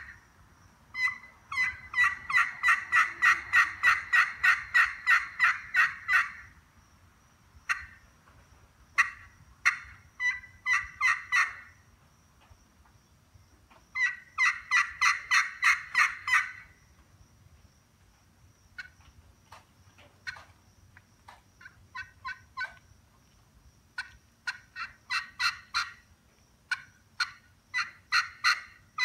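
Glass-surface turkey pot call with an ambrosia maple pot, played with a striker: runs of rapid, high yelping notes, with sparser single notes between the runs.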